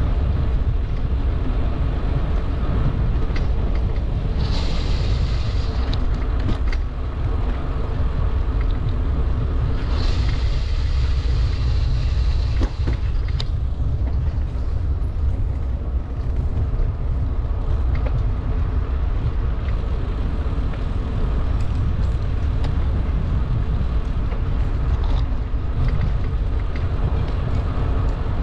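Wind rushing over the microphone of a camera riding on a moving bicycle: a steady deep rumble mixed with road noise, with two stretches of brighter hiss about four and ten seconds in.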